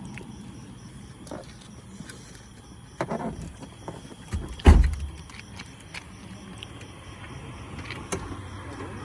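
One heavy low thump a little under five seconds in, with a short cluster of knocks and rattles just before it, over a faint steady background.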